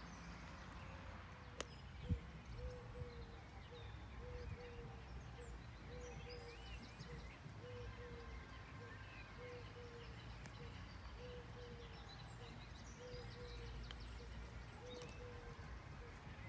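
Faint outdoor ambience of birds: scattered chirps, and a short low note repeated about once a second, over a steady low rumble. A single sharp click comes about a second and a half in.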